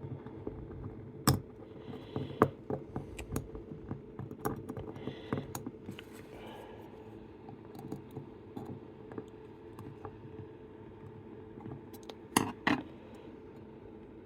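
Small metallic clicks, taps and scrapes of the levers of an antique Chubb detector lever lock being worked out with a lock pick, with a few louder clacks near the start and a sharp pair near the end.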